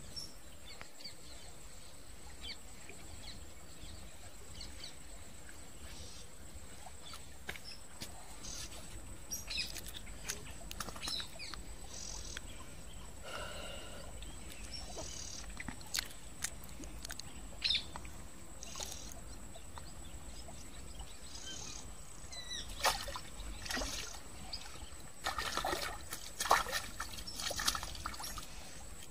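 Birds chirping on and off over a steady low outdoor background. A burst of splashing comes near the end, as a hooked fish thrashes at the surface of the pool.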